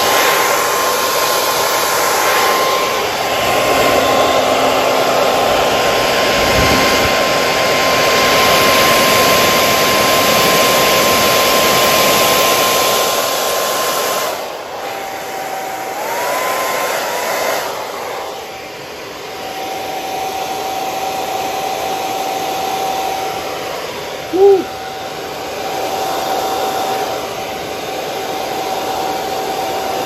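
Handheld hair dryer blowing steadily across a wet acrylic paint pour, a rush of air with a motor whine. About halfway through the whine drops lower and quieter, and a single short, loud sound cuts in about two-thirds of the way through.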